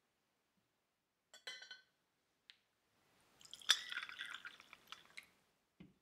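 Glass teaware clinking and liquid dripping during tea-making: a short clink a little over a second in and a single tick, then a sharp clink followed by about two seconds of trickling and dripping, and a soft low knock near the end.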